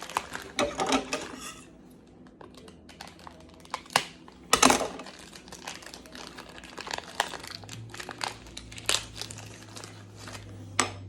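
Toy packaging being handled and rummaged through, crinkling and rustling in irregular bursts with scattered sharp clicks and knocks, the loudest a pair of knocks about four seconds in.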